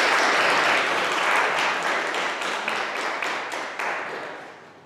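Audience applauding, loudest at first and dying away near the end.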